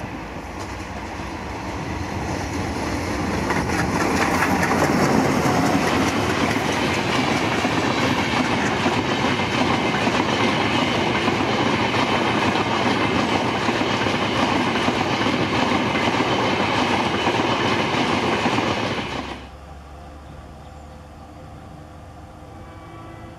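An ALCO WDM 3A diesel locomotive with its 16-cylinder ALCO 251 engine approaches and passes at speed. Its sound grows over the first few seconds, then the passenger coaches rush past on the rails. About 19 seconds in the sound cuts off suddenly to a much quieter background.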